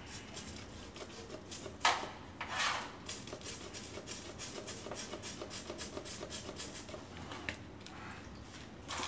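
Motorcycle front fork leg being rinsed in a metal drip pan of cleaning fluid: two liquid swishes about two seconds in, then a run of rapid light metallic clicks and rattles, about five a second, as the leg is rocked against the pan.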